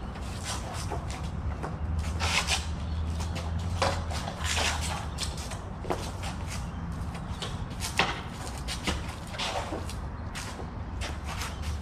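Training blades knocking together in irregular, scattered sharp clacks as the two fighters spar, with feet shuffling on the ground between strikes.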